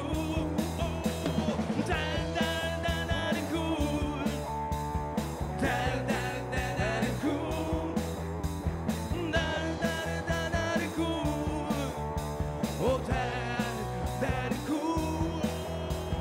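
Live rock band playing: a male vocalist singing into a microphone over electric guitar, electric bass and a Pearl drum kit.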